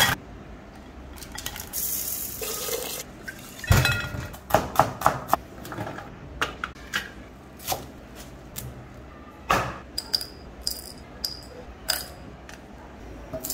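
Kitchen prep handling sounds: a string of short clinks, clatters and knocks as bowls and a steel plate of peeled shallots are moved and the ingredients handled, with a brief hiss about two seconds in.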